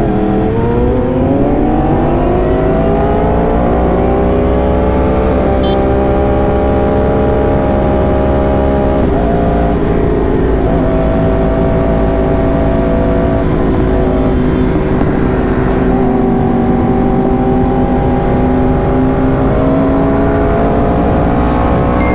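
Yamaha R1M's crossplane inline-four running loud at highway speed, heard from the rider's seat. The revs climb over the first couple of seconds, hold high and steady with brief breaks in the note about nine and thirteen seconds in, then climb again near the end.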